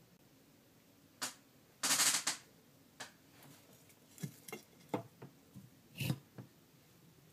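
Sharp clicks and knocks from metal feeding tongs being handled and tapped around a reptile enclosure, with a brief loud rustling scrape about two seconds in.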